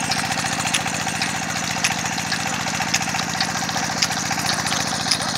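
Engine-driven sugarcane crusher running steadily, with a fast, even engine beat. Scattered sharp cracks come through as cane stalks are fed between the rollers.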